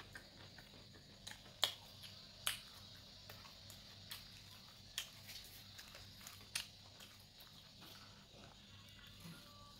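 Chewing fried, cornstarch-coated chicken: faint mouth sounds with a few sharp crunches and clicks, the loudest about a second and a half in, over a faint low hum.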